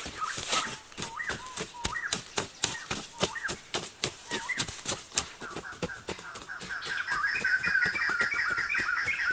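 A puppy whimpering in repeated short, high cries that turn into a fast, wavering whine near the end, over a run of sharp clicks and knocks.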